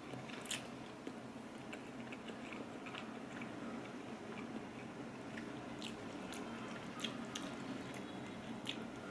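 A person chewing instant ramyeon noodles close to the microphone: faint, scattered wet mouth clicks and smacks.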